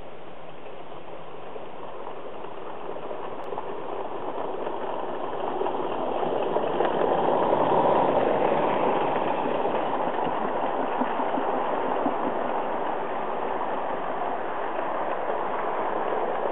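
Accucraft SM32 live-steam Welsh Highland Railway Garrett locomotive working hard near the summit, its steam exhaust and running gear growing louder as it passes about eight seconds in, then its train of wagons rolling over the rails.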